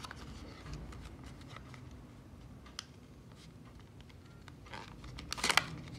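Clear plastic clamshell packaging being handled and pried open, with faint scattered clicks and crinkles and a brief burst of louder plastic crackling about five seconds in.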